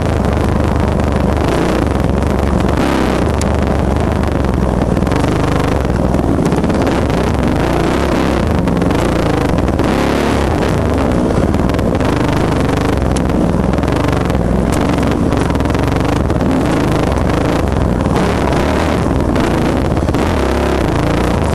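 The four-stroke single-cylinder engine of a 2007 Yamaha YZ450F dirt bike, running loud and close, its pitch rising and falling as the throttle opens and closes.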